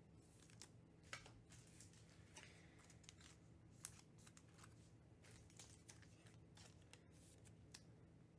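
Near silence: faint clicks and rustles of trading cards and foil packs being handled, over a low steady hum.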